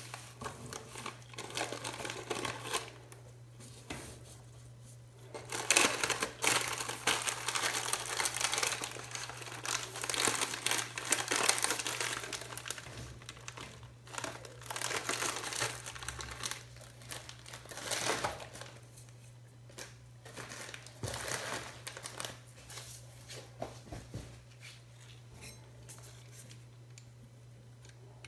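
Crinkling and rustling of an Oreo cookie pack's plastic wrapper as it is opened and handled, in irregular bursts over a steady low hum.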